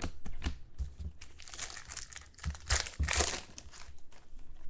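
Trading-card pack wrappers crinkling and tearing, with the cards clicking and sliding as they are handled. There are two longer rustles, about a second and a half in and near three seconds, among scattered small clicks.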